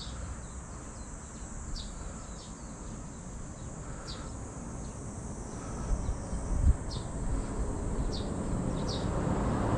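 Outdoor summer ambience: a steady high insect drone with short chirps scattered through it over a low rumble, and a brief thump about six and a half seconds in.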